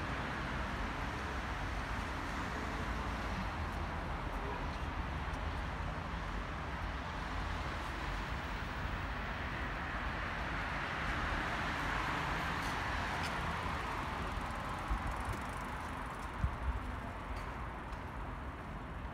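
Road traffic on a busy street: a steady hiss of passing cars that swells as a vehicle goes by about twelve seconds in, with a few short knocks near the end.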